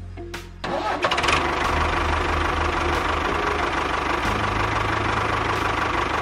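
Diesel tractor engine starting about half a second in, then running steadily with an even chug.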